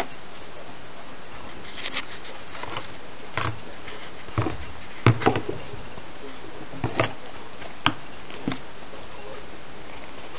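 Wild boar piglet moving about in a straw-and-blanket bed and nosing a pine cone: scattered rustles and knocks, the loudest about five seconds in, over a steady hiss.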